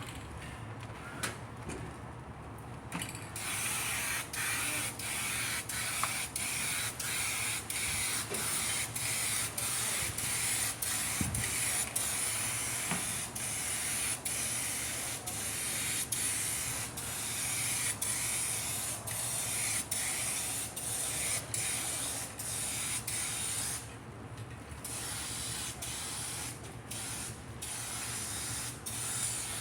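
Aerosol spray-paint can spraying paint onto sheet metal: a steady hiss that starts about three seconds in and pauses briefly near the end before resuming.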